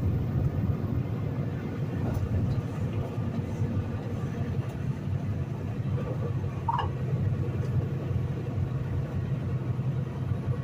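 Steady low rumble of a semi truck's engine and tyres on the road, heard from inside the cab while driving.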